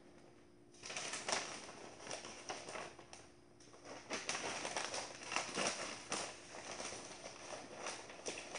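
Sheets of newspaper rustling and crinkling as they are handled and folded on the floor, starting about a second in, with a short lull midway.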